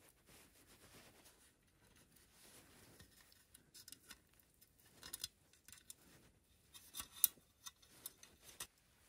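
Small metal clicks and clinks of a thin wire and chain being hooked onto a perforated stainless-steel stove-pipe section. They come in scattered clusters, mostly in the second half, and the sharpest comes about seven seconds in.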